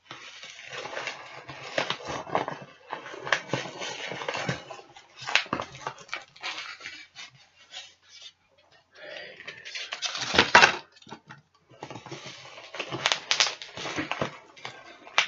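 Cardboard box being wrestled open by hand: irregular scraping, rustling and crackling of cardboard and packing, with a louder burst about ten seconds in and another around thirteen seconds.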